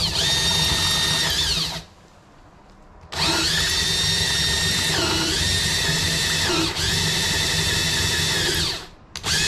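Cordless drill boring out a stripped M8 thread hole in an aluminum hydrofoil fuselage with a helicoil-kit drill bit. The motor whines in a burst of nearly two seconds, stops briefly, then runs for about six seconds, its pitch dipping twice, and ends with a short burst.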